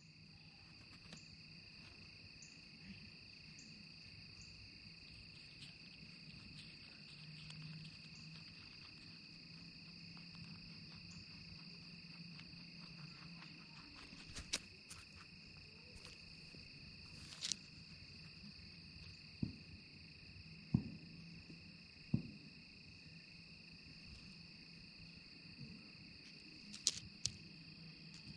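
Steady evening insect chorus, two unbroken high-pitched trills. In the second half, several sharp clicks and knocks close to the microphone while a cottontail rabbit feeds at the camera.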